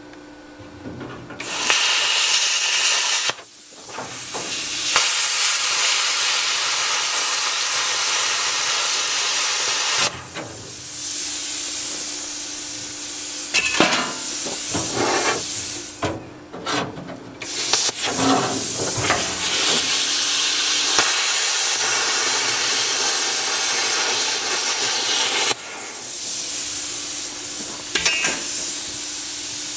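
Plasma cutter hissing as it cuts through a dishwasher's sheet-metal frame, in several long runs with short breaks where the trigger is released.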